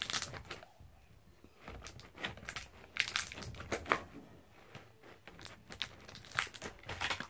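Small unicorn erasers being handled and put back into a clear plastic case: irregular plastic clicks and short crinkling rustles, with a few sharper taps about three and four seconds in.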